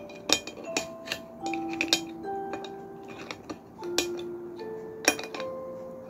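Chopsticks and a spoon clinking and scraping against a plate of crab, a dozen or so sharp clicks, over soft background music of slow held notes.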